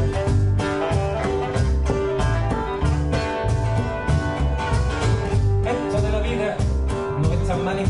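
Live acoustic band playing an instrumental passage: two acoustic guitars strumming and picking over a double bass and percussion keeping a steady beat, with a saxophone.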